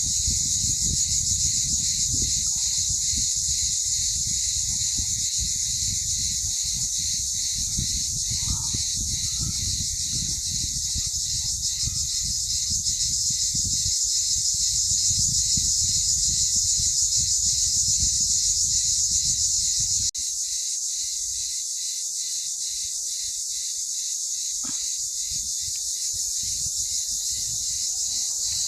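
A steady, high-pitched chorus of chirping insects with a fine, regular pulsing. A low rumble underneath cuts out abruptly about two-thirds of the way through.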